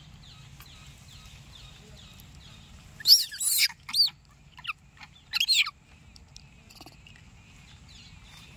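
Loud, shrill animal calls in three bursts about three to six seconds in, over faint chirping repeated about twice a second.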